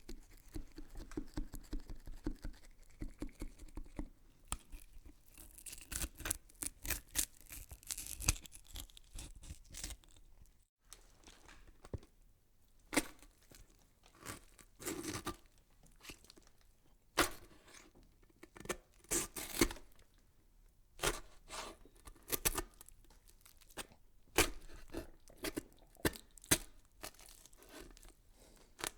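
Horror sound effect of irregular cracking, snapping and tearing noises, some in quick clusters and some single, over a faint low hum.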